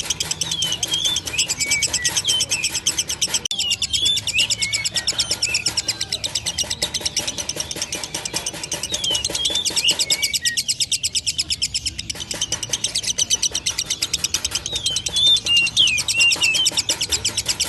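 Lovebird in a long, fast chattering trill (the 'ngekek' song): an unbroken rattle of high clicking notes, about ten a second, with squeaky rising and falling chirps laid over it.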